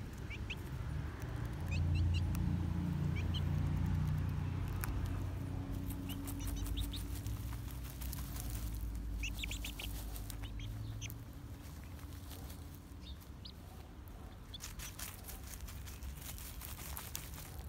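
Young chickens dust-bathing in dry earth and leaves: scattered rustling and scratching of the litter with brief chick peeps and soft clucks, over a steady low rumble.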